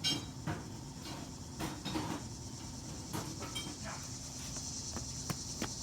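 Steady high-pitched insect chorus, with scattered light clicks and knocks from handling the bike wheel.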